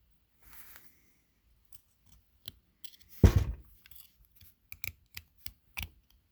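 Light metallic clicks and taps from working a slightly seized valve out of a Honda CL175 cylinder head, with one heavy thump about three seconds in.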